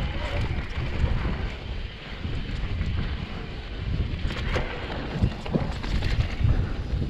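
Wind buffeting the microphone over the rumble of a Specialized Turbo Levo e-mountain bike rolling down a rough trail, with scattered sharp knocks and rattles from the bike.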